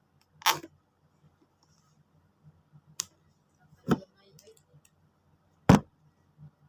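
Four sharp clicks and knocks from a smartphone box and its packaging being handled, a second or two apart.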